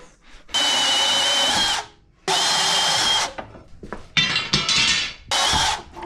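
Milwaukee cordless power saw cutting through a galvanized steel water pipe, its motor running in four bursts of about a second each with a steady high whine.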